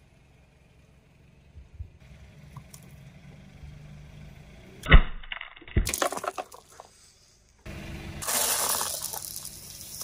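Car tyre rolling onto and crushing brittle objects: one loud crack about halfway through, then a quick run of smaller cracks and crunches. After a short gap, a steady rushing hiss follows.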